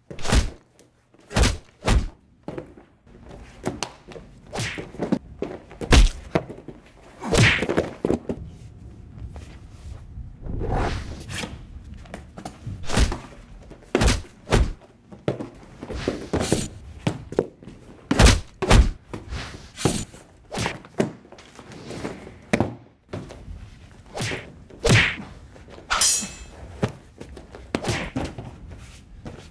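Irregular run of dull thuds and whacks from foam-padded combat weapons, staff, sticks and shield, striking one another, mixed with bare feet thumping and landing on padded gym mats during a choreographed fight.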